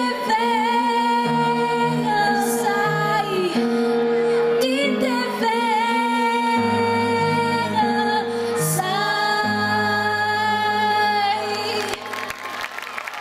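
Two women singing a duet into microphones over sustained backing chords, holding long notes with vibrato. The song ends about a second before the end and applause begins.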